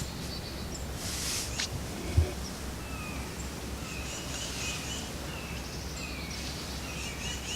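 Small birds chirping in short, repeated calls over a steady low outdoor rumble, with a brief rustle about a second in and a soft thump about two seconds in.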